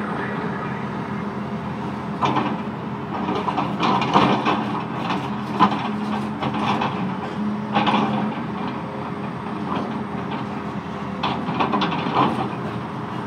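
John Deere 450D LC hydraulic excavator at work: the diesel engine runs with a steady drone while the bucket digs into dirt and rubble, giving irregular scrapes and clanks.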